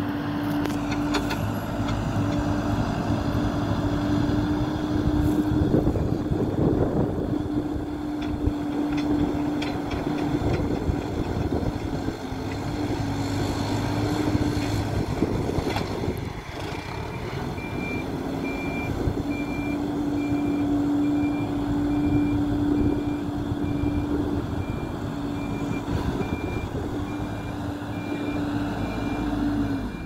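Hidromek 102B backhoe loader's diesel engine working under load, with a steady hum that dips briefly about halfway through. From about halfway on, its reversing alarm beeps at an even pace.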